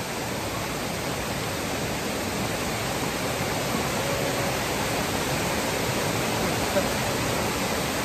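Steady rush of water from a nearby waterfall, an even hiss growing slightly louder.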